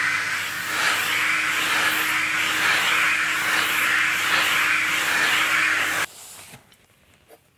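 Workshop vacuum running, sucking sawdust off a bandsaw's steel table through a brush nozzle, its hiss pulsing about twice a second as the nozzle is swept back and forth. It is switched off about six seconds in and runs down quickly.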